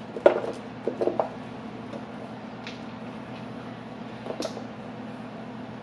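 Chopped onion pieces being dropped and spread by hand onto a metal sheet pan of raw cauliflower florets: a few short taps and rustles, the loudest about a quarter second in and just after a second in. A faint low hum runs underneath.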